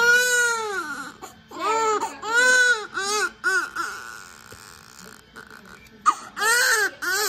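Newborn baby crying. One long wail comes first, then a run of shorter, quicker cries. After a lull of about two seconds, a fresh burst of cries starts near the end, each cry rising and falling in pitch.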